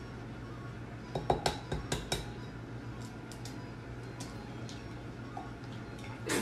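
An egg being tapped against the rim of a metal cocktail shaker tin: a quick cluster of sharp clinks about a second in, then a few faint ticks as it is cracked open over the tin. A short, louder noise comes at the very end.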